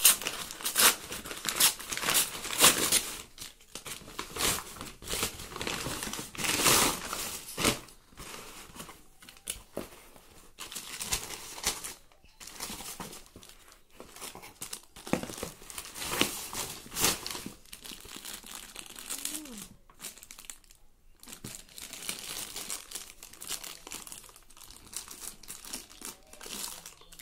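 Packaging crinkling and tearing by hand: a plastic courier mailer bag being opened, then tissue paper and clear plastic shoe bags rustling as sneakers are unpacked. A long run of irregular crinkles and rustles, busiest and loudest over the first several seconds.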